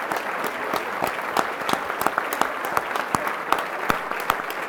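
Audience applauding steadily, with individual hand claps standing out sharply.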